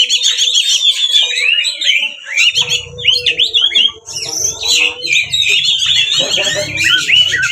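Oriental magpie-robin (kacer) singing a fast, unbroken string of high whistles, trills and chattering notes, the aggressive fighting-style song used as a lure to provoke other magpie-robins to sing and fan their tails.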